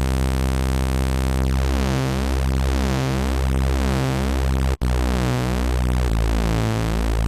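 Sustained sawtooth synth tone from Ableton Operator: two Saw D oscillators on the same note, the second slightly detuned, so the sound pulses with beating about twice a second as the two waves drift in and out of phase. The note cuts out briefly just after the middle, and near the end the beating quickens.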